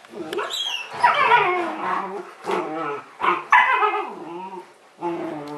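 Dogs play-wrestling, with a run of whining, yipping play calls that slide up and down in pitch, about five in a row, the longest falling in pitch about a second in.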